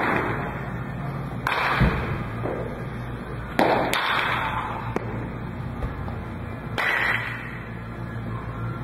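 Baseballs popping into a catcher's mitt, four sharp pops two to three seconds apart, each echoing briefly in a large hall.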